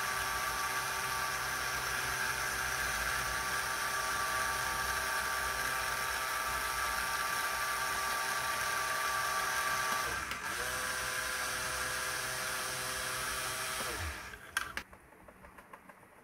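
Small electric lifting gear motor of a Huina 1573 RC dump truck, driving its metal gear train with a steady whine. About ten seconds in it stops briefly, then runs again at a slightly different pitch until it stops about fourteen seconds in, followed by a couple of clicks.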